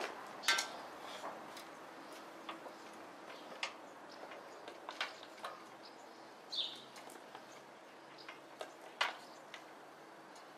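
Light, irregular metallic clicks and clinks of hand tools and parts being worked on the cast-iron stand of a 1939 Adler motorised bicycle, with a few louder clinks among them.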